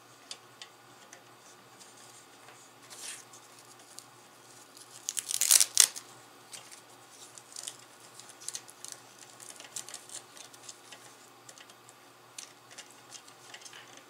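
Hands handling parts while assembling a computer rig: scattered small clicks and taps, with a loud rustling tear lasting under a second about five and a half seconds in.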